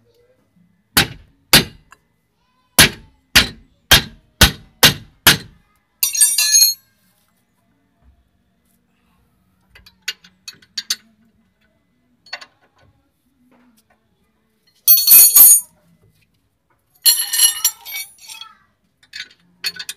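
Hammer blows on the steel stabilizer link of a Hyundai Starex's front suspension: eight sharp strikes, roughly two a second, over the first five seconds. After that come a few short bursts of metallic clinking and clattering.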